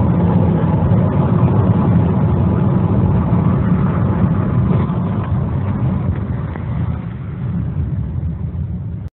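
Car engine and road noise heard from inside a moving car's cabin: a steady low rumble that eases off slightly near the end.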